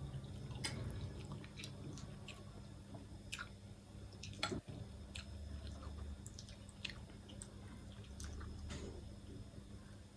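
Close-up eating sounds of a person chewing spicy ramen noodles: wet chewing and mouth clicks scattered through, the sharpest about halfway. A steady low hum runs underneath.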